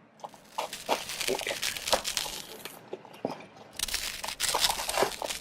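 A cardboard Lego set box being torn open and its contents handled: dense crinkling and tearing crackle in two spells of about two seconds each.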